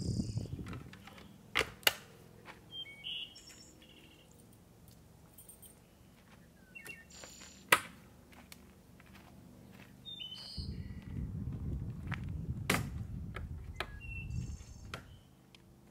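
Small birds chirping on and off, broken by a few sharp clicks and knocks from gear being handled on a bass boat, the loudest about two seconds in and near eight seconds. A low rumbling noise comes in at about ten seconds and runs for several seconds.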